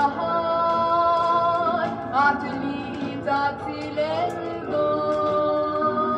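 A woman singing a Christian song from a 1960s record, holding long notes and sliding up into each new one.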